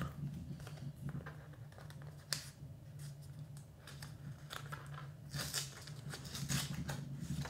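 Stiff cardboard art cards being handled while a paper band is worked off the stack: faint rustling and sliding of card against paper and fingers, with a sharper scrape about two seconds in and several more in the last two seconds.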